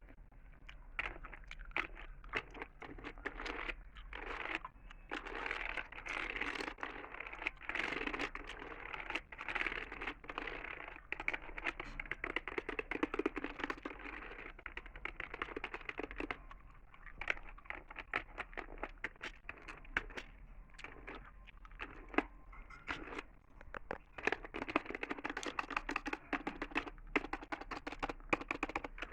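Close-miked gum chewing with wet mouth clicks, mixed with the tapping clicks of a computer keyboard being typed on, irregular and continuous.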